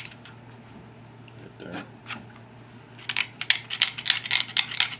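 Copper-tipped pressure flaker shearing along the edge of an obsidian biface: quick runs of sharp little clicks and ticks as the small sharp edge bits snap off. It is quieter for the first few seconds, and the rapid clicking picks up again about three seconds in.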